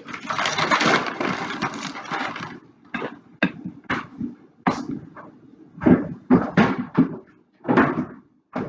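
Plastic bag rustling for about two and a half seconds, then a string of short rustles and pats as handfuls of crushed topping are put around a cake.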